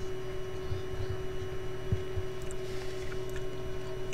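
Steady background hum with a low rumble and scattered soft low thumps, and no clear event standing out.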